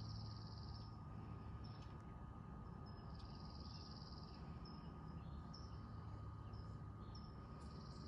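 A small songbird's high trill, repeated three times about every three to four seconds, with short high chirps between, faint against a low steady background hum.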